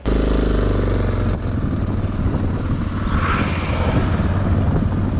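A vehicle engine running with a loud, low, steady drone that cuts in abruptly at the start.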